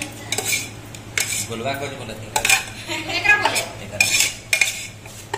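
A metal utensil scraping and clinking against a large stainless-steel bowl as cooked chicken biryani is stirred and turned over, in irregular strokes.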